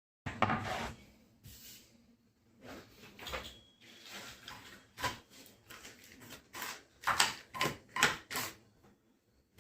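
Flat-pack furniture packaging being opened and handled: a run of irregular scrapes, rustles and knocks, busiest and loudest near the end.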